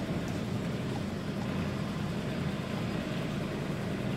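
Mitsubishi Fuso Fighter truck's diesel engine running steadily, heard from inside the cab as a low, even drone.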